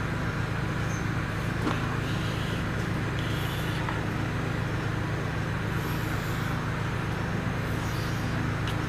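Steady low hum of background noise, with a few faint squeaks of a felt-tip marker drawing lines on a whiteboard.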